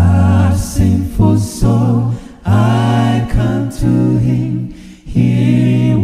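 Unaccompanied a cappella singing of a Christian hymn, with voices holding long notes in phrases separated by short breaks.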